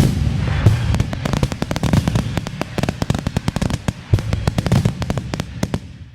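Fireworks sound effect: dense crackling with low booms, starting suddenly and slowly dying away until it stops near the end.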